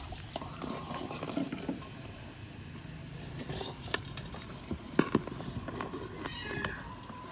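A metal spoon scraping and clinking against a large steel wok as raw pork pieces are turned in marinade, with wet shifting of the meat and a few sharp knocks, one about four seconds in and two close together about a second later.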